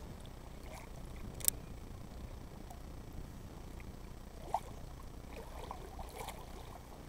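Faint low rumble with a single sharp click about a second and a half in, a short squeak near the middle, and a few small ticks near the end.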